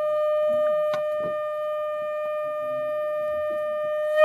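Conch shell (shankh) blown in one long, steady note that ends abruptly with a short, louder blast about four seconds in.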